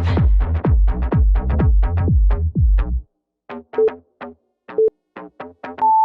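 Electronic dance music with a steady drum-machine beat; the heavy bass drops out about halfway, leaving lighter beat hits, and a short steady beep sounds near the end.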